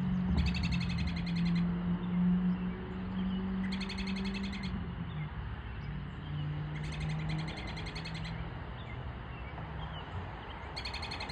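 A songbird singing a fast, buzzy trill of rapidly repeated high notes, four times, each phrase about a second long and a few seconds apart. A low steady hum runs underneath.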